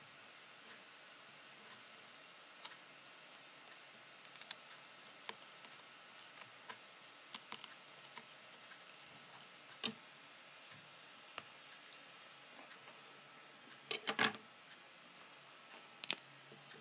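Scattered small clicks and crunches of a kitchen knife cutting into a raw cucumber's skin, with a louder cluster of knocks about fourteen seconds in.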